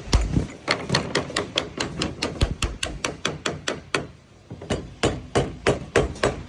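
Code 8 sheet lead being dressed flat with rapid taps of a hand lead-working tool, about four strikes a second, with a brief pause near two-thirds of the way through before the tapping resumes.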